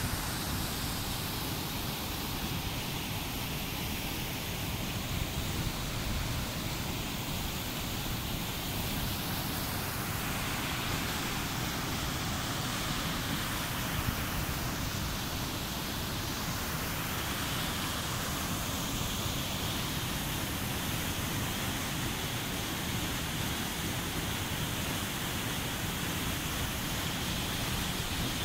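Steady rush of a waterfall cascading through a rock channel into a pool, with a low rumble underneath.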